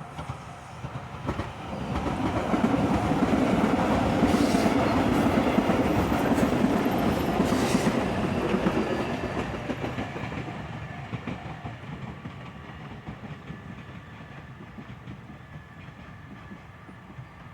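A train passing over a level crossing, its wheels clattering over the rail joints: it builds up about two seconds in, is loudest for several seconds, then fades slowly away. A level-crossing warning bell rings steadily underneath.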